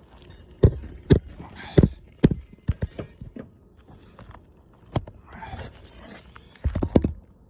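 Sharp knocks and scraping on an asphalt shingle roof: several single knocks a second or so apart early on, a lone one about five seconds in, and a quick cluster near the end.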